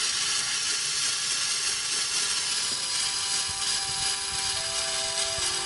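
Aerosol cleaner spraying in a long steady hiss onto an engine's oil pump pickup screen. Faint music notes come in from about halfway through.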